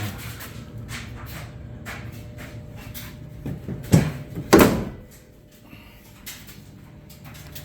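Two loud knocks, about four seconds in and again half a second later, like a door or panel being shut, over a steady low hum and scattered light clicks.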